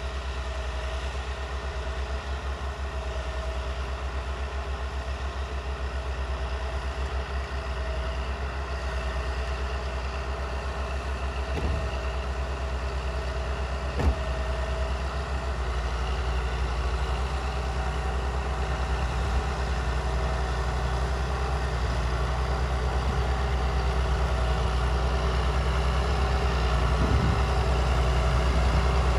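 Two Massey Ferguson tractors, an 8130 and a 3080, running steadily under load as they pull ploughs, growing gradually louder as they approach. A few sharp knocks stand out, the clearest about halfway through.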